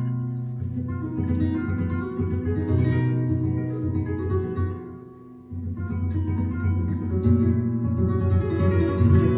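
Flamenco guitar played solo: plucked notes and runs. About five seconds in, the playing lets a note die away almost to silence, then starts up again.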